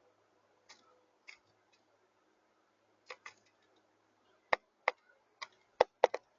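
A bird pecking: sharp, irregular taps, faint and sparse at first, then louder and quicker over the last two seconds.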